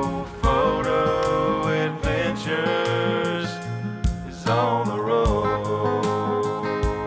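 Outro music: a country-style song with singing, guitar and a steady drum beat.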